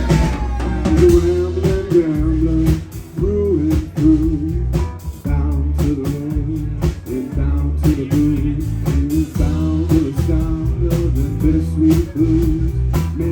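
Live rock band playing a blues-flavoured song: a wavering sung melody over guitars, bass and drums.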